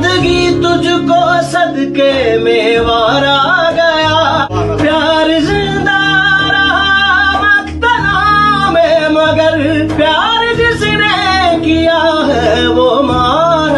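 Urdu song: a male singer holding drawn-out, wavering notes over instrumental accompaniment with a sustained bass.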